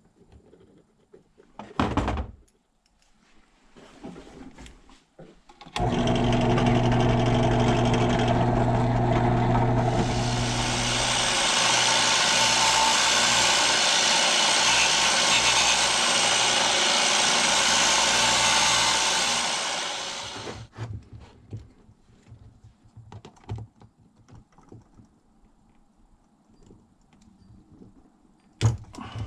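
A small electric power tool runs steadily for about fifteen seconds at an even pitch, with a harsher hiss joining about four seconds after it starts. There is a knock shortly before it starts and another at the end.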